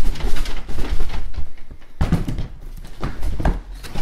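A mid-tower computer case in its Styrofoam end pieces being shaken inside an upturned cardboard box, giving repeated knocks and rustles. There are heavy thumps about two seconds in and again near the end. The case stays stuck in the box.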